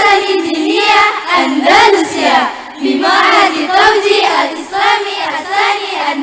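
A group of young voices singing a melody together in unison, in a high register.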